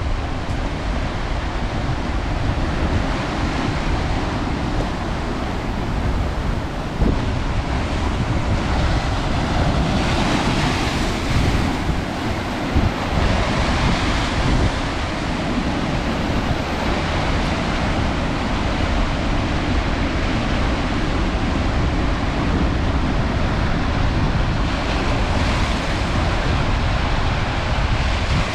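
Steady rushing noise of wind and waves, with heavy wind buffeting on the microphone and a few louder swells of hiss.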